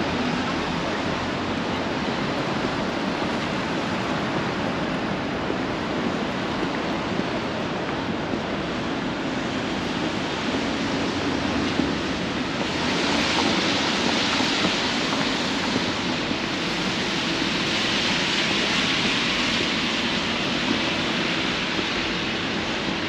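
Steady hiss of city traffic on rain-wet streets, with tyres on wet pavement swelling louder twice in the second half as vehicles pass.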